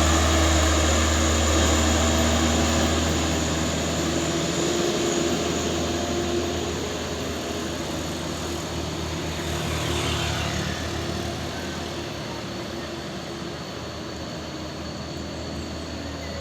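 Diesel engine of a Mitsubishi Canter truck fitted with a Fuso engine, running steadily and gradually getting quieter.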